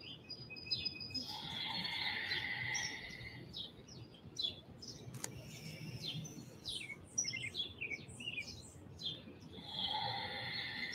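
Several birds chirping and calling, with many short high chirps and two stretches of steadier calling near the start and near the end. A brief faint click comes about five seconds in.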